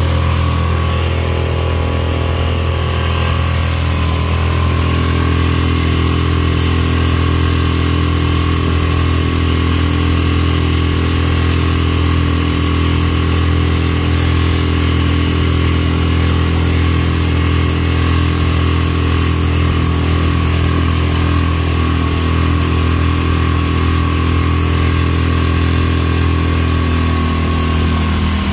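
Mercury 3.5 hp four-stroke outboard running steadily at top speed, its pitch picking up slightly a few seconds in, with water rushing along the kayak hull.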